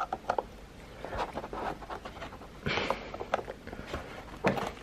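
Metal screwdriver clicking and scraping against the axle nut and plastic hub of a Valco Baby Snap stroller wheel as the nut is pried at: a run of small sharp clicks with one longer rasp about halfway through.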